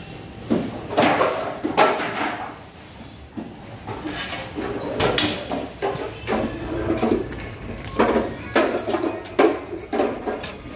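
Irregular clattering and scraping of metal in a working bakery, the sound of a long-handled iron peel and baking trays being worked at a brick oven.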